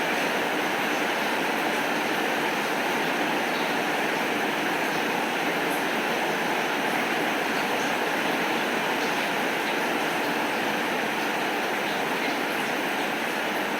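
Heavy rain falling steadily, an even hiss with no breaks or claps of thunder.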